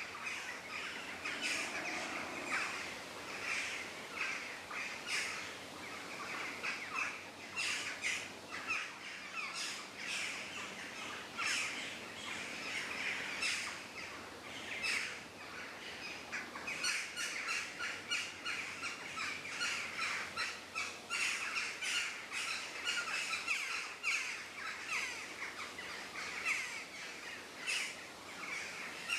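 Forest ambience full of birdsong: many birds chirping and trilling at once, in a continuous overlapping chorus of quick high calls.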